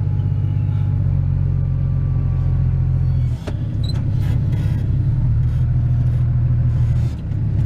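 Tractor engine running steadily, heard from inside the cab, its low drone dropping away briefly twice, about three and a half seconds in and again near the end, with a sharp knock at the first dip.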